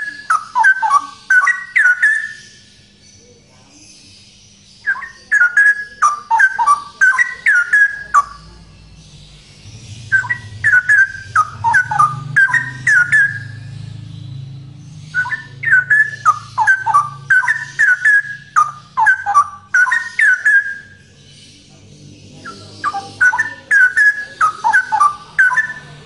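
Male straw-headed bulbul singing loudly in five bouts, each a rapid run of short falling notes lasting a few seconds, with brief pauses between. A faint low rumble sits under the middle bouts.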